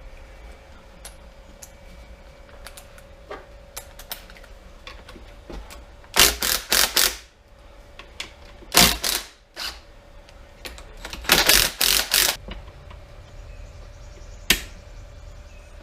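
Metal tools and engine parts being handled on a workbench: scattered light clicks and taps, with a few clusters of loud short clanks and rattles about six, nine and eleven to twelve seconds in, and one more near the end.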